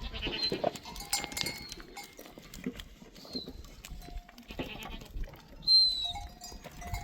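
Sheep and goats bleating in a pen, with scattered knocks and clatter. A short, high whistle-like call about six seconds in is the loudest sound.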